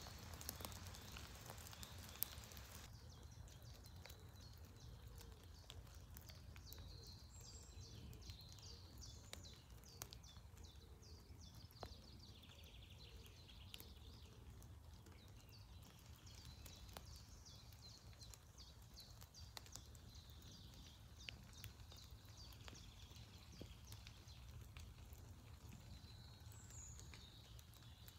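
Faint, quiet forest ambience in rain: scattered, irregular raindrop ticks over a low steady rumble.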